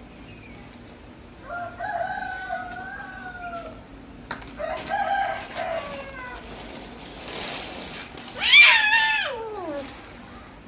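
A cat yowling in three long drawn-out moans, the last the loudest, wavering and sliding down in pitch at its end, with a breathy hiss just before it: threat calls of a cat confronting another cat.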